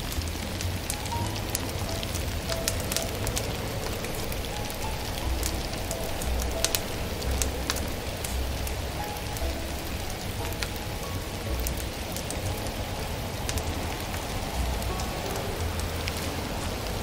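Wood fire crackling steadily, with many small sharp pops, over soft background music.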